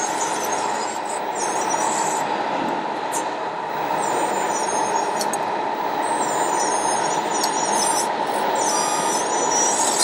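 Radio-controlled scale wheel loader at work: a high-pitched motor whine comes in short spells, wavering up and down in pitch as the bucket and drive move. Under it runs a steady rushing background noise.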